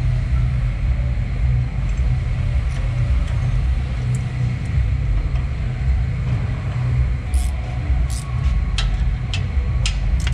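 Steady low rumble of background machinery, with a few light metal clicks and ticks from hand tools working the exhaust manifold fasteners in the second half, coming closer together near the end.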